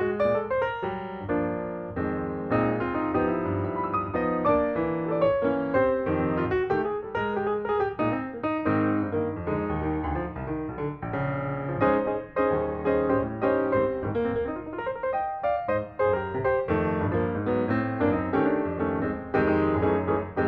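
Piano music: a continuous flow of notes played throughout.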